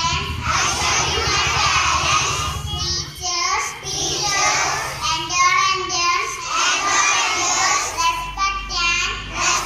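Young children reciting loudly in a sing-song voice into a microphone.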